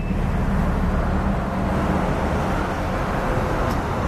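Car driving, heard from inside the cabin: a steady mix of engine and tyre noise on wet pavement.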